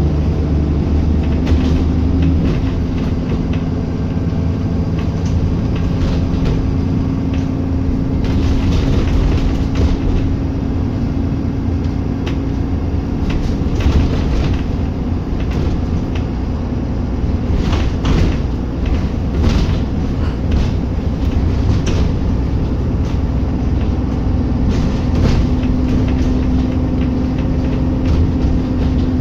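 Double-decker bus on the move, heard from the upper deck: a steady engine drone and road rumble, with short clattering knocks now and then.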